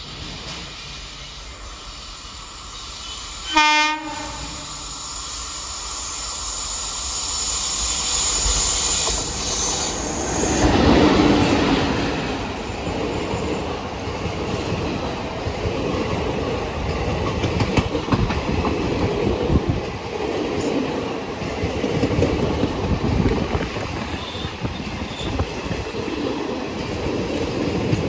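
Indian Railways train on the Mysore–Bangalore line: a short horn blast about four seconds in, then the train approaches and passes close by. The rumble peaks near the middle, then settles into a steady rumble and clickety-clack of coach wheels over the rail joints.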